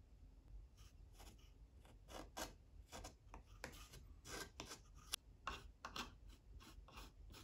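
Hobby knife blade spreading and scraping plastic putty into the seams of a 3D-printed plastic body panel: a string of faint, short, irregular scrapes.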